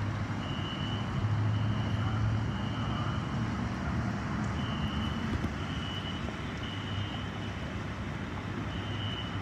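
Fire alarm horn sounding the temporal-three evacuation pattern: three short high beeps, a pause, then three more, repeating. It sounds over a steady low rumble. The onlooker takes the alarm for an inspection test of the ramp's notification appliance circuits.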